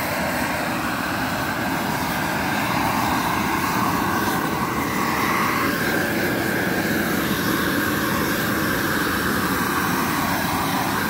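Gas-fired shrink-wrap heat gun with a wire safety guard, its flame burning with a steady, even rush of noise as it heats the plastic shrink film around the base of a pallet to make it shrink.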